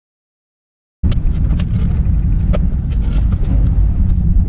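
Car driving, heard from inside the cabin: a steady low rumble of engine and road noise that starts abruptly about a second in, with a few scattered sharp clicks or knocks.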